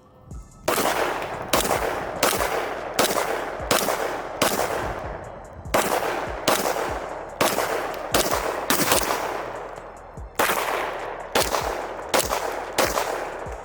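Glock pistol in 10mm Auto fired rapidly, about twenty sharp shots roughly every half second, with one short pause about two-thirds of the way through. The pistol runs through the magazine without a jam.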